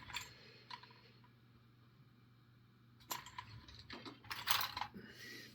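Small metal tools clinking and clattering as they are searched through by hand, with a sharp click about three seconds in and a short burst of rattling about a second later.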